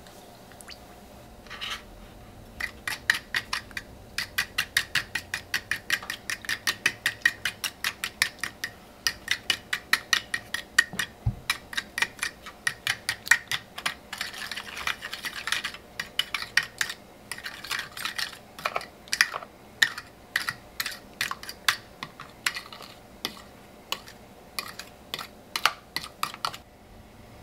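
Fork whisking eggs, milk, sugar and cinnamon in a bowl, its tines clicking against the bowl's side about three or four times a second in a steady run that stops just before the end.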